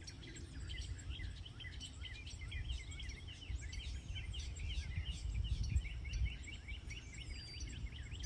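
Many small birds chirping at once, a dense run of short overlapping chirps, over a steady low rumble.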